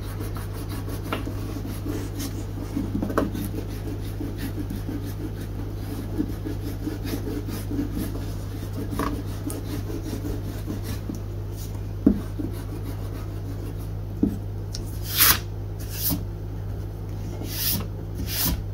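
Eraser rubbing back and forth over drawing paper, erasing pencil lines from under inked lines, a continuous fast scrubbing with a few louder sweeping strokes near the end.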